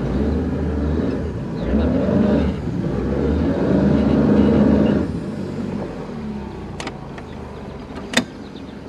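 Mercury 150 four-stroke outboard running in gear to push the bass boat up onto its trailer (power loading), then throttled back about five seconds in. A sharp knock sounds near the end.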